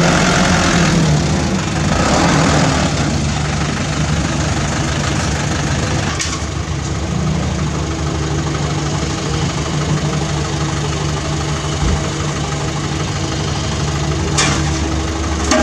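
Diesel engines running steadily: a Mitsubishi Fuso Canter dump truck pulling in, louder in the first few seconds, with a CAT 305E2 mini excavator working alongside. Two short sharp knocks come about six seconds in and near the end.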